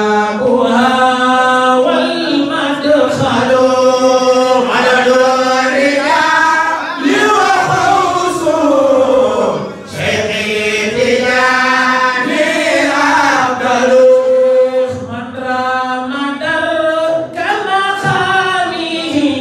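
Unaccompanied Arabic Sufi devotional chanting by male voice through a microphone and PA, with long drawn-out notes that bend and waver in pitch.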